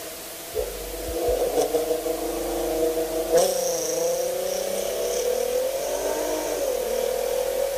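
Volkswagen Golf R32's 3.2-litre VR6 engine running, its pitch drifting gently up and down with light revving. A sharp click comes about three and a half seconds in, followed by a faint high whine.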